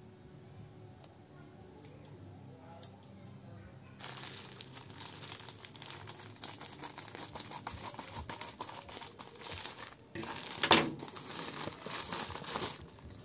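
Plastic courier mailer bag crinkling and crackling as it is handled and torn open. The sound starts about four seconds in, with the loudest rip about three-quarters of the way through.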